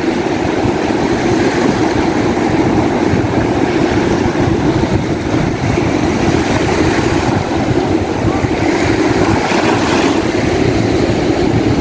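Wind buffeting the microphone in a steady low rumble, over the wash of surf breaking offshore.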